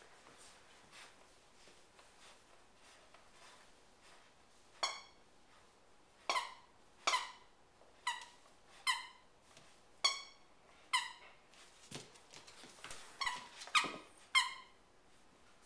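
A squeaker in a plush rabbit toy squeaking as a puppy bites and chews it. About ten short, sharp squeaks come roughly once a second from about five seconds in, each dropping a little in pitch, with a quick cluster near the end.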